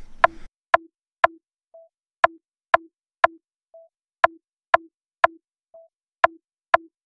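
Sparse electronic beat: sharp percussive clicks, two a second, in a repeating four-beat pattern where every fourth beat is a softer short tone instead of a click.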